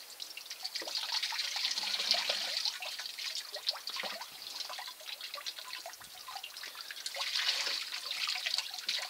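Water streaming off the end of a wooden sluice box and splashing into a plastic tub below, a steady trickling patter of many small drops as the sluice is rinsed out. It grows louder about two seconds in and again near the end.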